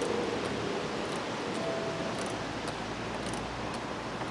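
Diesel fuel-line hand priming bulb being squeezed over and over, giving faint, quick rubbery ticks about twice a second over a steady hiss; the pumping draws diesel through the new fuel filter to bleed the system.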